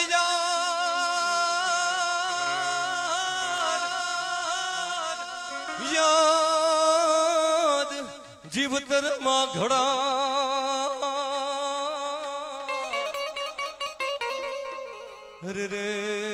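Male folk singer holding long, wavering notes without words into a microphone, over instrumental accompaniment, in Gujarati lok dayro style.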